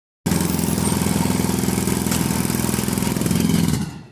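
A motor engine running steadily with a fast, even pulse, likely road-construction machinery. It starts abruptly just after the start and fades away near the end.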